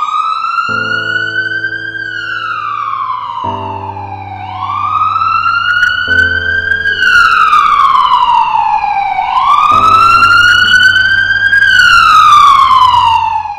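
Wailing siren, its pitch slowly rising then falling in three full cycles, over low sustained music chords that change every few seconds.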